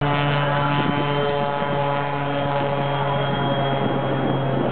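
Aerobatic Pitts-type biplane's piston engine and propeller droning loudly and steadily at high power, holding one even pitch.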